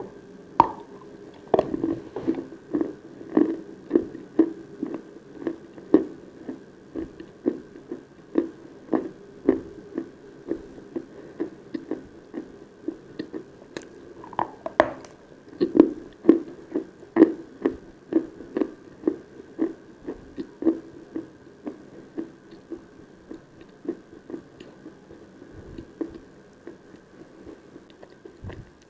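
Close-miked chewing of Khrapovsky eating chalk: a crisp bite near the start and another about halfway, each followed by steady rhythmic chewing at a little under two chews a second, which fades out near the end.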